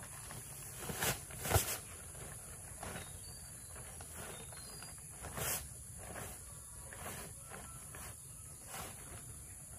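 Scattered knocks and scrapes over a steady low background noise, the loudest a cluster about a second and a half in and another just past the middle.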